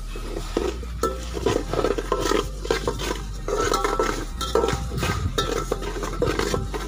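Metal ladle stirring and scraping in an aluminium pot, with irregular clinks and scrapes against the pot over a steady low hum.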